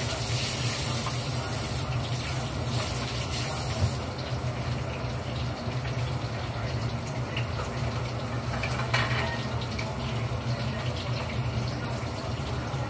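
Water running from a kitchen tap into the sink during washing up. It is louder for the first four seconds and then eases off. There is a sharp clink about nine seconds in, and a steady low hum underneath throughout.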